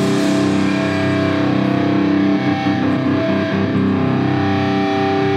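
Distorted electric guitar amplifiers left ringing after playing has stopped: several steady, overlapping feedback tones with hum, and no strumming or drums.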